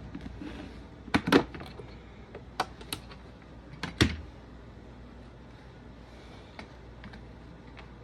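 Scattered light clicks and knocks of hands handling a pistol and its case, most of them in the first four seconds, with two fainter ones later.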